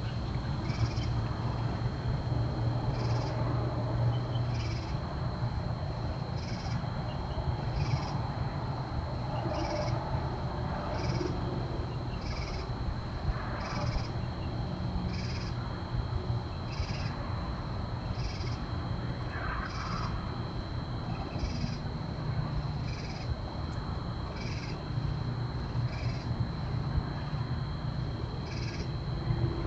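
Night ambience: a steady low hum under a steady high-pitched insect-like whine, with a short high chirp repeating about once a second.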